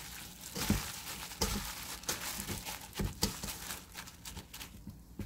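Plastic-gloved hands mixing seasoned dried radish strips (muchim) in a stainless steel bowl: the disposable gloves crinkle and the wet strips rustle in irregular strokes, which thin out near the end.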